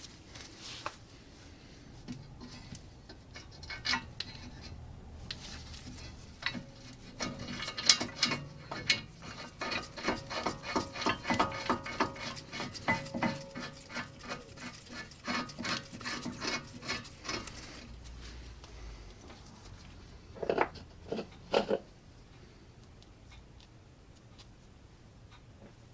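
Metal clinking, rattling and scraping as the VW Tiguan's front brake pad carrier and caliper are handled and fitted over the new brake disc. There is a dense run of clatter through the middle, then two sharper knocks later on.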